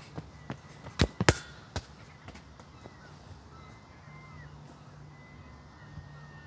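A football being kicked and bouncing on a rubber playground surface: about four sharp thuds close together around a second in, then only a faint steady background.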